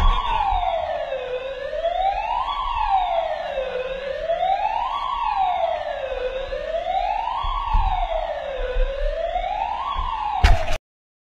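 Police siren wailing, rising and falling slowly about every two and a half seconds, with a low rumble underneath; a sharp knock sounds near the end and the siren cuts off suddenly.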